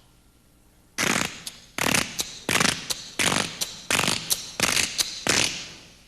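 A man's vocal sound effects made with the mouth: about ten short, hissing, noisy bursts at uneven spacing, starting about a second in and stopping near the end.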